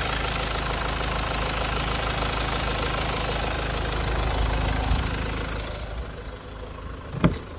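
Hyundai Santa Fe engine running at idle, heard from the engine bay, with a faint pulsing high-pitched tone over the steady running noise: the under-hood whistle, which changing the climate control settings does not affect. The running noise eases off about six seconds in, and a sharp click sounds near the end.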